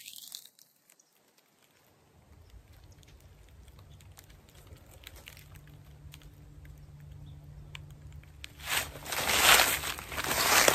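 A quiet stretch with a faint low hum and scattered small ticks, then loud rustling and crunching in repeated bursts over the last two seconds.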